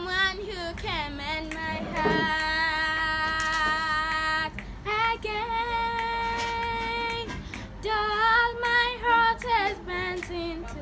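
A young girl singing solo. She holds two long, steady notes in the middle, the second one higher.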